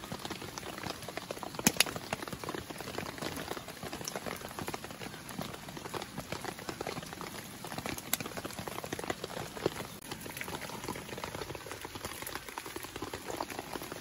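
Eggs sizzling and crackling in a frying pan over a wood fire, with a few sharp pops, the loudest about two seconds in.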